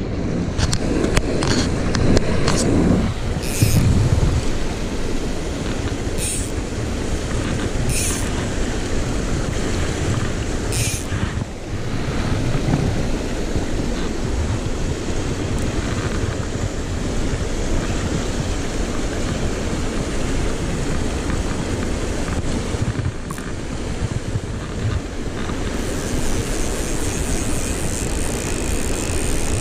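Steady rush of a mountain stream running over rocks and boulders. A few short, sharp rustles cut through it in the first dozen seconds.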